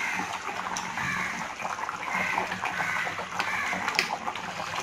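Thick fish curry boiling hard in an open pot, its sauce bubbling and popping in a steady stream of small pops.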